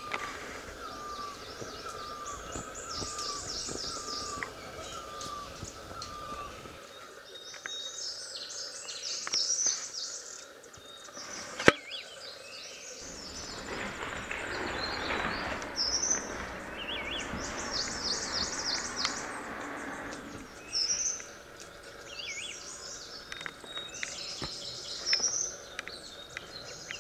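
Small birds chirping and twittering in short, high-pitched phrases. A mid-pitched call note repeats about twice a second for the first six seconds. There is a single sharp click about twelve seconds in, and a broad rushing noise from about fourteen to twenty seconds.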